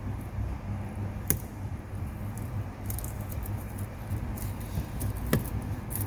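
A cutter stripping the outer jacket of a coaxial cable: two sharp clicks, one about a second in and one near the end, with faint scratching in between, over a steady low hum.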